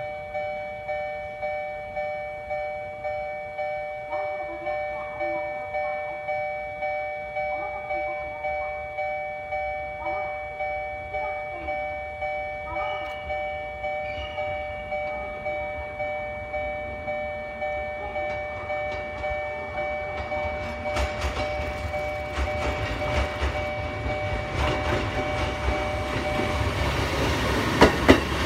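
A railway level-crossing warning bell rings in an even, repeating ding and stops shortly before the end. A Kotoden retro electric train led by a 1070-series car approaches under it, its rumble growing louder, and its wheels click over the rail joints as it passes close by near the end.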